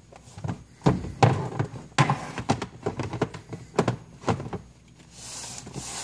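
A series of irregular knocks and clunks from equipment cases and boxes being handled, with a short scrape about five seconds in.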